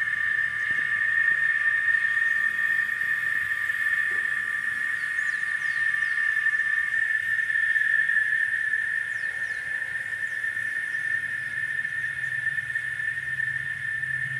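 Cicada singing, a loud, steady, high-pitched whine held without a break. A second, lower-pitched cicada tone drops out about halfway through.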